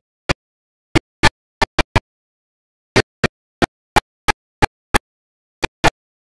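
The ending theme song heard only as short chopped fragments: about sixteen split-second bursts, irregularly spaced at roughly two or three a second, with dead silence between them, as if the audio track keeps dropping out.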